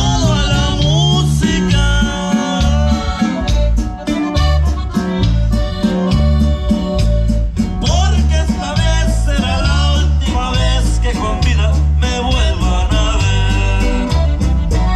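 Norteño band playing an instrumental passage: accordion melody over plucked strings and a steady bass beat.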